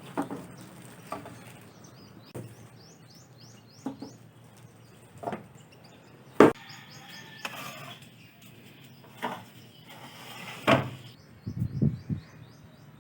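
Scattered knocks, clicks and rustles of a car subwoofer's cardboard box and packing being handled and opened, the loudest knock about six seconds in. Runs of quick, high chirps from a bird sound in the background several times.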